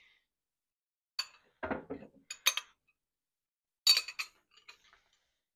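A metal spoon and a glass bowl clinking and knocking as they are handled and set down: a soft knock and a few light clinks a little after the start, then a sharper, ringing clink near four seconds in.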